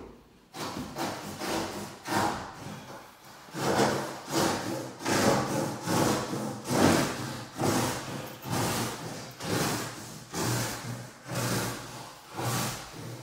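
Rhythmic rubbing and wiping strokes on the glass during a window-film install, about two strokes a second from roughly three and a half seconds in, with sparser strokes before that.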